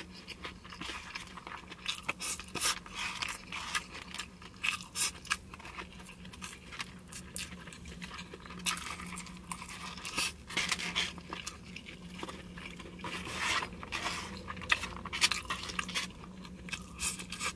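Plastic fork scraping and clicking against a styrofoam takeout box as rice and grilled beef are picked up, with chewing, in many short irregular clicks and scrapes.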